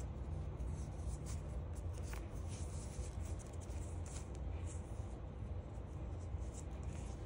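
Paper swing tags and fabric care labels rustling and crinkling as fingers handle them, in irregular light crackles over a steady low rumble.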